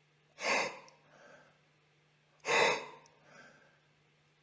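A man's sharp, gasping in-breaths, twice, about two seconds apart, each followed by a fainter breath. This is a singer's 'surprise breath': a sudden inhalation that opens the ribs and throat cavity.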